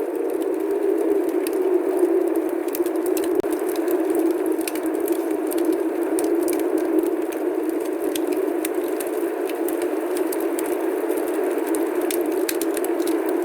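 Snowstorm ambience: a steady rushing noise with scattered small ticks and crackles throughout.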